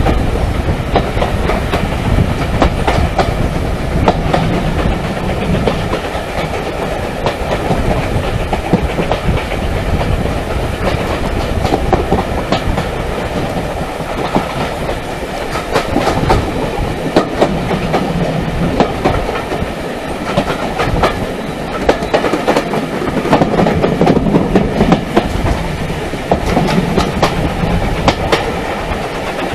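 Heritage railway carriage running along the line, a steady rumble of wheels and running gear with frequent clicks of the wheels over the rails, heard from a carriage window.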